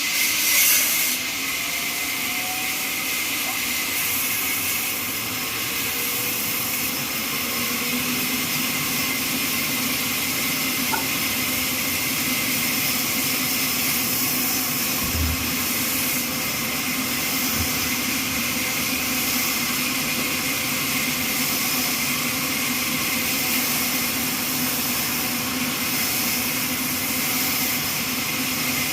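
Horizontal trolley band sawmill running steadily, a constant machine hum under a strong high hiss, with a short rise in level at the start and a single knock about halfway through.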